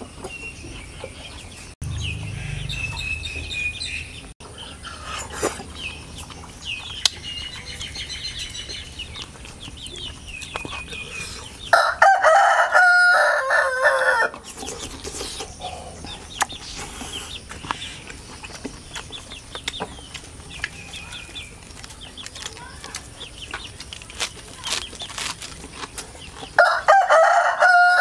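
A rooster crowing twice, about 12 seconds in and again near the end, each crow about two and a half seconds long. High, short bird chirps go on throughout.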